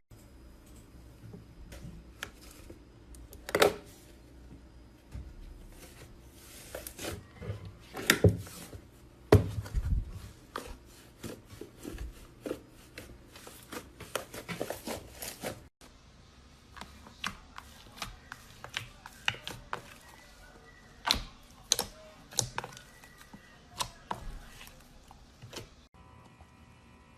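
Slime being squeezed and worked by hand, giving irregular sticky pops and clicks, with a short pause at about 16 s before more of them.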